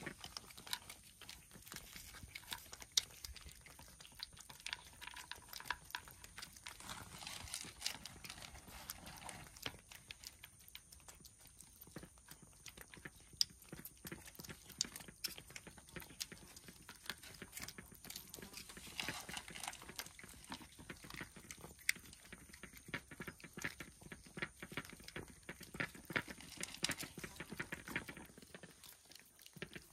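Stray cats eating, with faint, irregular crunching and clicking of chewing throughout.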